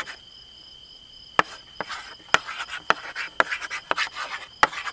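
Chalk tapping and scratching on a hard surface: about seven sharp taps, roughly two a second, starting about a second and a half in, with scratchy strokes between them. Crickets chirp steadily throughout with a high, even trill.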